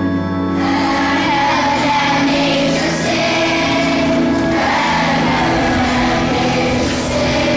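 Children's choir singing with musical accompaniment; the singing grows fuller about half a second in.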